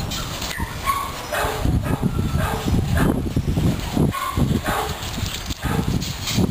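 A dog barking and yipping in short, repeated bursts while playing.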